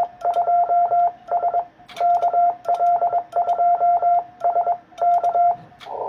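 Morse code (CW) radio signal: a single steady beep tone keyed on and off in dits and dahs, sending an amateur-radio CQ call with the operator's callsign. A band of receiver hiss comes up near the end.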